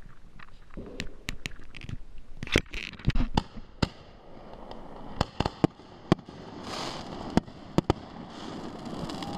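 Fireworks going off: irregular sharp bangs and pops, the loudest cluster about three seconds in, with a brief hiss about seven seconds in.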